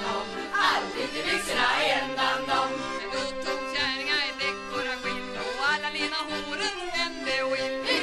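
Traditional Swedish folk music played by an acoustic folk ensemble, a melody carried over a steady accompaniment.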